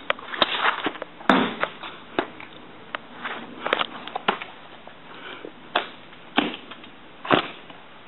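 Irregular knocks and thumps from a pretend fight, about a dozen sharp hits spread unevenly over several seconds.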